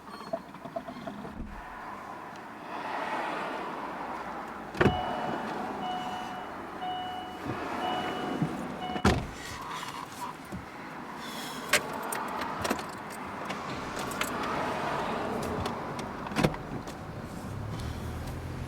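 Car handling sounds: a series of knocks and clunks, with an electronic warning chime beeping about four times in a row. The chime stops just as a loud thud lands.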